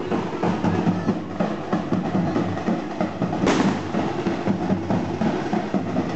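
Procession drums, including a large two-headed bass drum, beaten in a steady, busy rhythm. A single sharp crack cuts through about three and a half seconds in.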